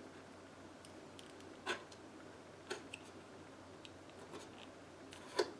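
A few sharp clicks and small scraping ticks of plastic parts being handled, as a glued-in bulb is worked out of its plastic holder in a toy dashboard; the loudest click comes near the end.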